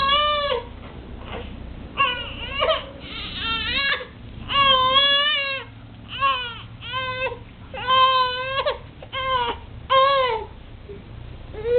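Infant crying in a string of short wails, about nine of them, each rising and falling in pitch, with brief breaths between.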